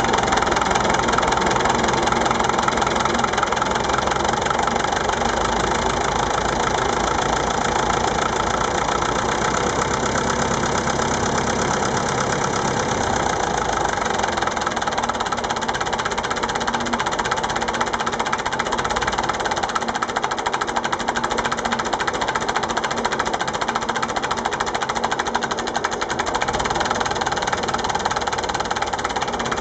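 Massey Ferguson 825 tractor engine idling steadily, with a knocking running rhythm.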